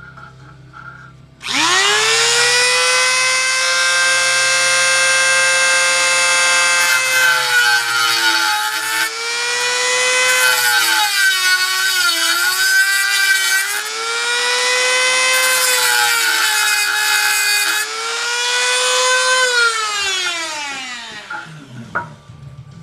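Dremel rotary tool with a cutoff wheel spinning up to a high, steady whine, its pitch dropping three times as the wheel bites into metal, cutting slots in the badge-plate rivet heads, then winding down near the end.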